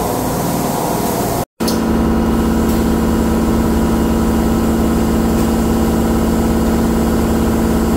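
Industrial machinery running with a steady, even hum and a strong steady tone. The sound drops out completely for a moment about a second and a half in, then resumes unchanged.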